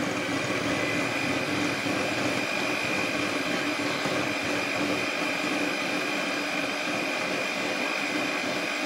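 Moulinex electric hand mixer running steadily, its beaters whisking cake batter, with a constant high motor whine.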